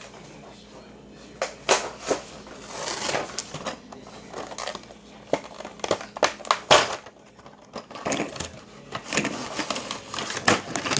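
Rummaging in a box of Hot Wheels die-cast toy cars: packaging crinkles and rustles, with many sharp clicks and clacks as the cars are handled.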